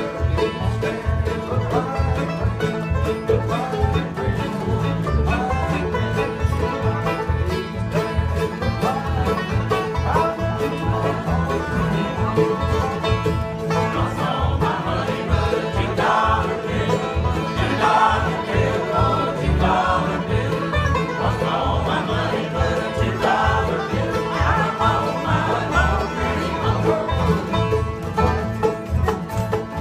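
Live acoustic bluegrass jam: banjo, acoustic guitars, fiddle and mandolin playing together with a steady rhythm, the melody growing busier about halfway through.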